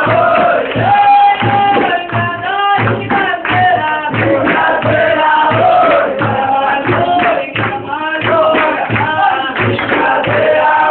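Capoeira roda music: several voices singing together over a steady, even drum beat.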